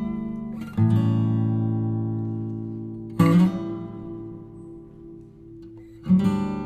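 Background music: acoustic guitar strumming chords, three strokes each left to ring out and fade.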